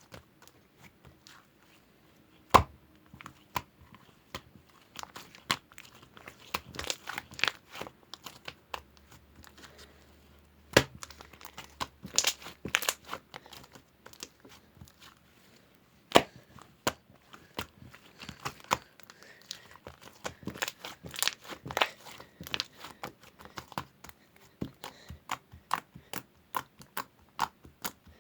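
Glittery purple slime being squeezed and poked by hand, giving irregular sharp clicks and pops, in clusters with short pauses between them.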